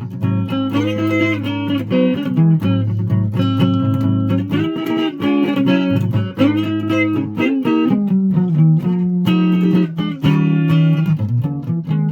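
Guitar being played, untuned: a run of plucked notes, some of them bent, over held low notes.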